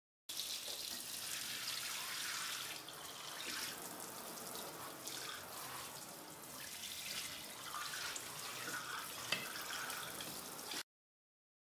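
Kitchen tap running into a stainless-steel sink over plates and a glass: a steady splashing hiss of water. A single sharp knock comes near the end.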